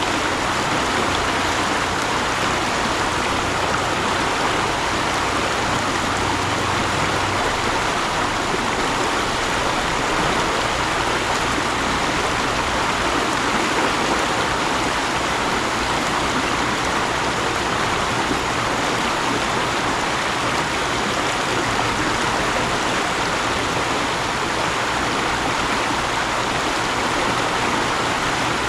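Mountain stream flowing: a steady, even rush of water over rocks.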